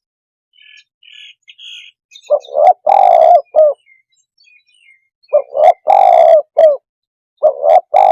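Spotted dove cooing as a decoy call to lure wild doves: three phrases, each two short coos, a longer drawn-out coo and a short closing coo, repeated about every two and a half seconds. A few faint high chirps come before the first phrase.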